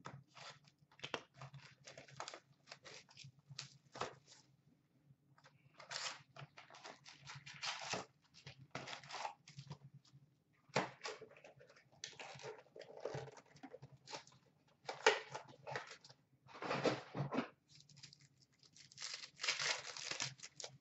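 A box of hockey cards and its packs being torn open by hand: repeated rips of cardboard and wrapper with crinkling, in irregular strokes.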